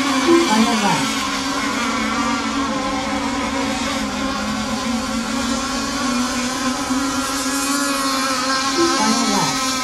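Several radio-controlled racing boats running flat out, their small engines making a steady high-pitched whine. The pitch drops as a boat passes close, about half a second in and again near the end.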